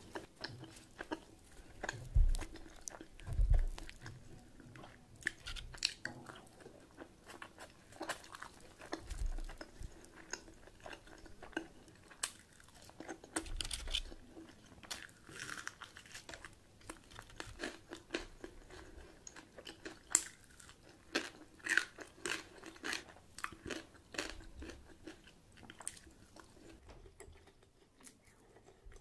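A person chewing and crunching food, with many short irregular mouth clicks and a few low thumps in the first few seconds.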